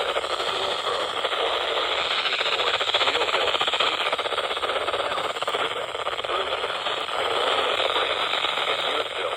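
Steady static hiss from a weather radio receiver on a weak NOAA Weather Radio signal, thin and band-limited like a radio speaker, with the broadcast voice lost in the noise.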